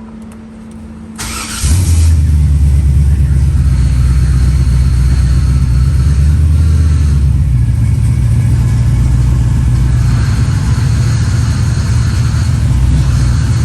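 Car engine cranked briefly by the starter and catching about a second and a half in, then idling steadily and loudly.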